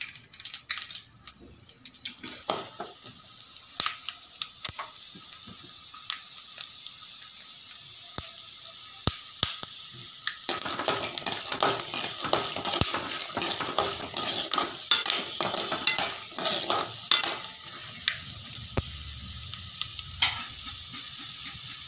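Peanuts frying in hot oil in a wok, the oil sizzling with scattered crackles and pops that grow busier about halfway through.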